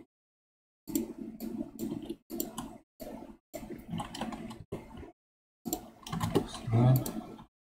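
Computer keyboard keys and mouse buttons clicking in a run of short bursts, with dead silence between the bursts.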